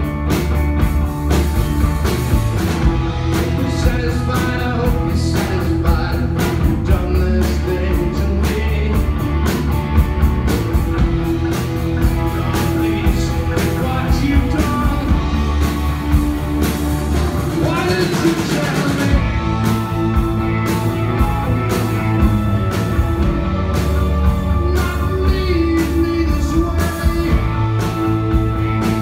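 Live rock band playing: electric guitar, electric bass and drum kit with a lead vocal. About two-thirds of the way through there is a rising sweep and a brief drop-out of the bass and drums before the full band comes back in.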